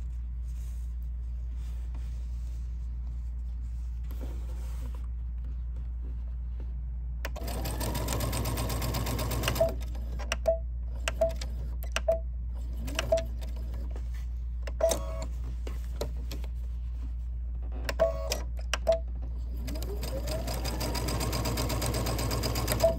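Electric sewing machine stitching a seam through cotton fabric in stop-start runs. After a few quiet seconds, the motor speeds up into a run about a third of the way in, then comes a string of short spurts, each with a sharp tick. A longer run that speeds up again follows near the end.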